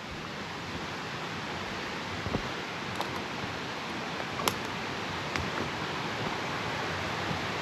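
Steady rushing of a small waterfall, with a few faint clicks over it.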